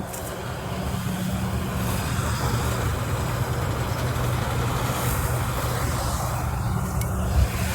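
Engine of a rice harvesting machine running steadily under load, with a steady low hum and mechanical clatter. A short thump near the end.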